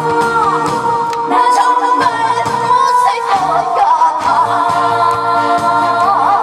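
A woman singing into a handheld microphone, her voice wavering in vibrato over instrumental accompaniment with a repeating bass line.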